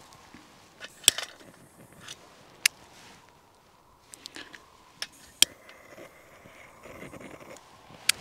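Trangia stove parts being handled: a few sharp metallic clicks and light clinks, a second or more apart.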